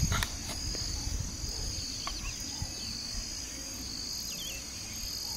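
Steady high-pitched drone of insects in a pasture, with a few faint short bird chirps about two seconds and four and a half seconds in, over a low rumble.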